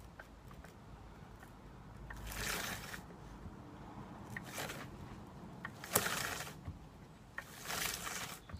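Chainsaw bar and chain being handled and fitted by hand: four or five short metal scrapes with a few sharp clicks as the bar is worked onto the saw's mounting studs.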